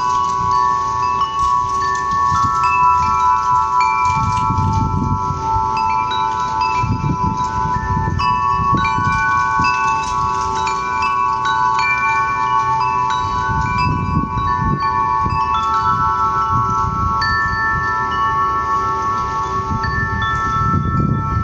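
Wind chimes ringing continuously, with many metallic tones overlapping and ringing on. Low rumbling swells, like gusts of wind, come every few seconds.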